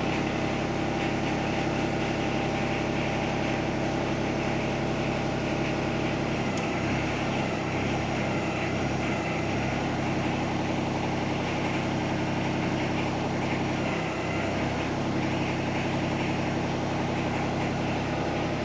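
Yanmar SA425 compact tractor's diesel engine idling steadily, its low hum dipping briefly a few times near the middle.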